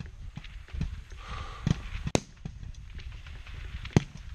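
Rifle shots on a high-power rifle match firing line: several sharp cracks, the loudest about two seconds in and about four seconds in, with fainter shots between.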